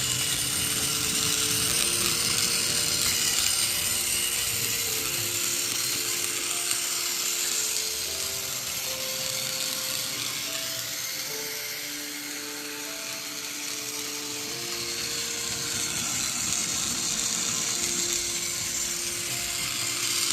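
Motorised toy train engine running on its track, its small motor and gears whirring, growing louder and softer as it travels around. A slow melody of held notes plays alongside.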